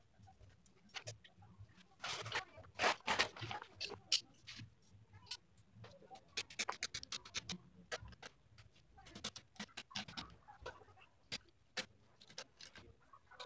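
Old sofa upholstery fabric being ripped off its frame by hand in short tugs, tearing and rasping, with scattered sharp clicks. The loudest tearing comes a couple of seconds in.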